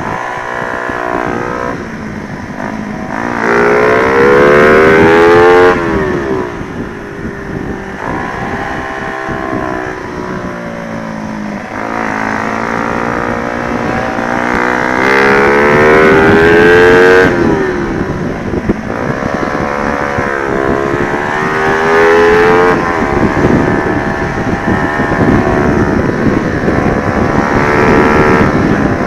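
Honda Sonic 125 motorcycle with a swapped-in 150cc single-cylinder engine, run hard on track. The engine note climbs under throttle and then drops sharply at each shift or lift-off, several times over. The two loudest pulls come about 4 seconds in and about 15 seconds in.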